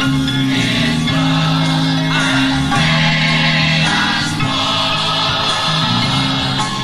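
A congregation singing a gospel hymn together, with notes held long and changing every second or two.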